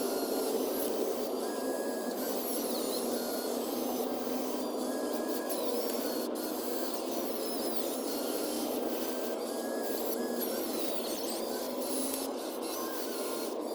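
Small electric motors and metal gearboxes of RC construction machines whirring steadily, with rasping and scraping as they work dirt. Short whines come and go every second or two.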